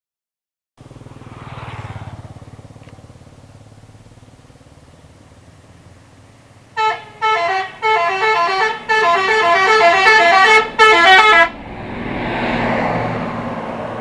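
Telolet horn of a Wijaya Putra bus, a loud multi-tone musical horn, playing a quick run of short notes stepping up and down for about five seconds from roughly halfway in. Traffic noise swells before and after it.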